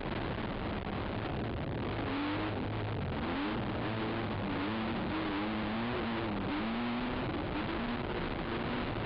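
Race ATV engine revving up and down as the quad is ridden hard over a dirt trail, its pitch rising and falling about every half second to second from about two seconds in. A steady rush of wind and rough-ground noise sits under it.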